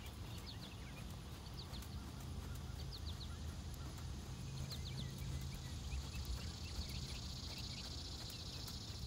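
Outdoor ambience of small birds chirping in quick runs of two or three notes, over a steady low hum, with a high buzzing haze, like insects, for the last couple of seconds.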